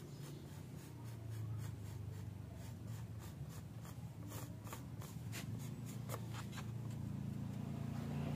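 Marker pen scratching on bare wood in a series of short, quick strokes, over a steady low hum that grows louder in the second half.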